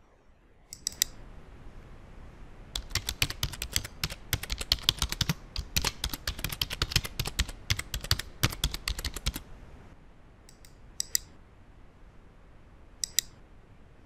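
Typing on a computer keyboard: a short burst of keystrokes about a second in, then a quick, dense run of keystrokes for about six seconds, followed by a few single clicks near the end.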